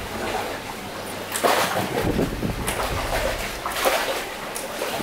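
Harbour water sloshing and splashing, coming and going in irregular surges, over a low rumble.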